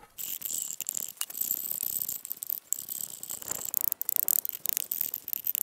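A blade scraping and shaving bark and knot stubs off a wooden pole in short, repeated strokes that come quicker from about four seconds in. A steady high-pitched buzz runs behind it.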